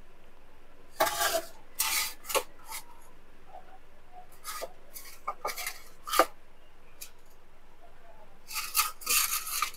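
Small Samsung surround speaker cabinets being handled and turned over, giving a string of short rubbing and scraping sounds with a few light knocks, the longest stretch of rubbing near the end.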